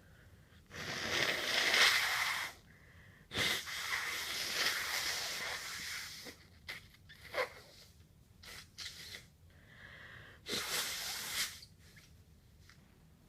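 A person blowing their nose hard into a handkerchief: two long blows of about two seconds each, a few short breathy bursts, then a shorter blow near the end.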